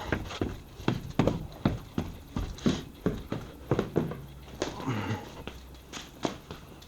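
Quick footsteps on a bare floor in an unfinished house, a steady run of hard steps at about two to three a second.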